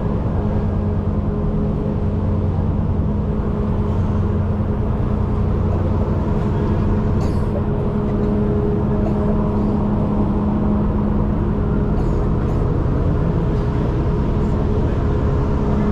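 A ferry's engines running steadily at the dock: an even, low mechanical hum held at a few fixed pitches.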